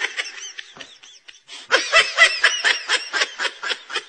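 High-pitched snickering laughter: faint at first, then from about halfway in a fast, even string of short laughs, about seven a second.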